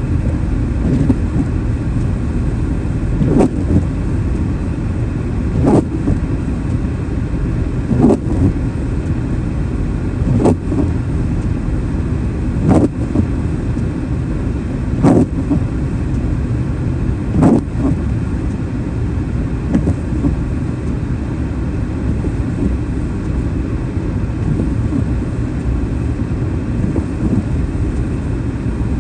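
Car driving at steady speed: steady engine and tyre rumble, with a short thump about every two seconds that fades out after about eighteen seconds.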